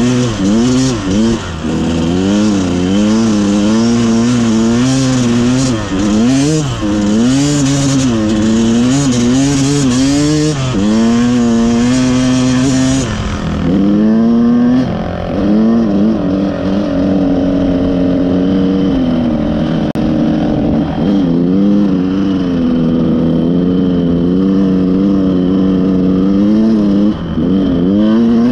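Dirt bike engine revving up and down continuously while riding, its pitch rising and falling again and again with the throttle. A high rushing noise over the engine drops away about halfway through.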